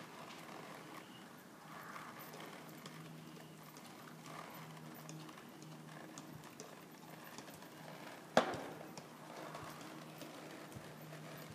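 Horse walking on soft arena dirt, its hoofbeats faint and irregular, with one sharp knock a little past eight seconds in.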